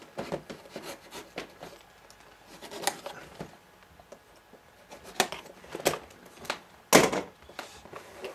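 A folding pocket knife cutting the tape seals along the edge of a cardboard box: irregular scraping and clicking as the blade slits the seal, with one loud sharp crack about seven seconds in.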